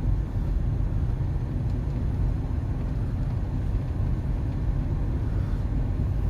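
Minivan driving, a steady low rumble of engine and road noise.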